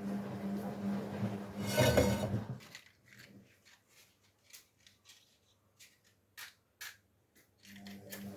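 Washing machine running with a steady humming tone, broken about two seconds in by a loud clatter; the hum then cuts off and a few sharp clicks and taps sound in the quiet before the hum returns near the end.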